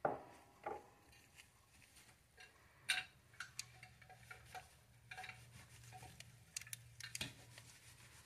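Quiet, irregular small clicks and knocks from the metal body of an Olympic Penguin 204 spinning reel being handled and turned over in gloved hands during disassembly.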